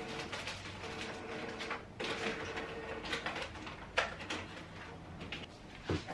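Canon Pixma TS5020 inkjet printer making its mechanical whirring and clicking after finishing a print job, with a hum that stops and restarts. There are a couple of sharp knocks, about four seconds in and near the end.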